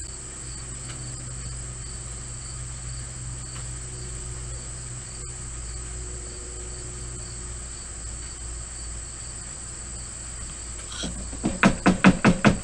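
A steady, high-pitched chorus of insects trilling in summer, over a low steady hum. Near the end it is cut by a quick run of loud, short pulses, about five a second.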